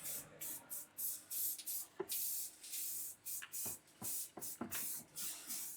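Enamel spray paint hissing out in short repeated bursts, about two a second, as an engine is sprayed. A few light knocks come in the middle.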